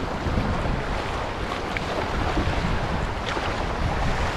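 Fast, high river water rushing and splashing around a canoe running a rapid, with wind buffeting the microphone as a low rumble.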